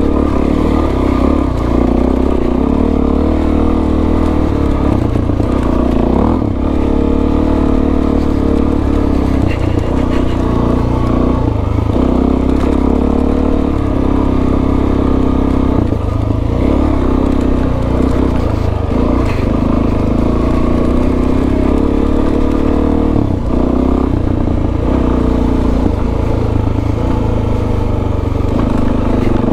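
Suzuki DRZ400S single-cylinder four-stroke motorcycle engine running under way, the engine note rising and falling with the throttle, with several brief dips in pitch.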